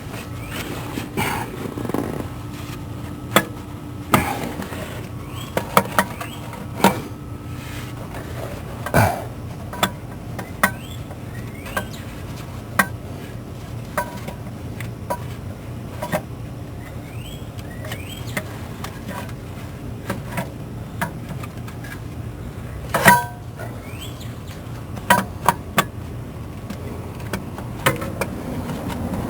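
Irregular clinks and knocks of hand tools and metal parts being handled during car repair work, over a steady low hum.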